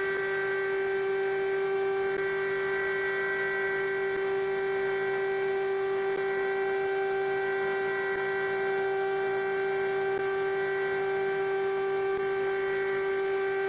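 Emergency alert alarm tone: one long, steady, unbroken tone with several layered pitches, holding without change.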